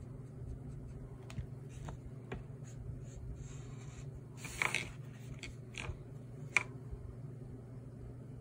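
Pen strokes scratching on drawing paper while inking, a few short scratches and taps, with a longer scrape a little past the middle and a sharp tick soon after, over a steady low hum.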